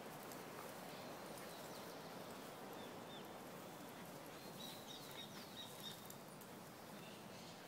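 Faint outdoor background hiss, with a few short, high bird chirps between about three and five seconds in.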